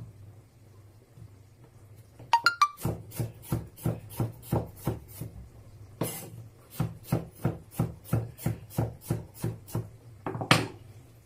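Knife chopping a pepper on a cutting board in steady strokes, about three a second. A brief ringing clink comes about two seconds in, and a louder knock near the end.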